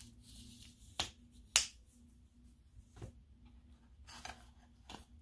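Small hard objects clicking and tapping against each other as items are handled and sorted by hand: a few scattered sharp clicks, the loudest about a second and a second and a half in.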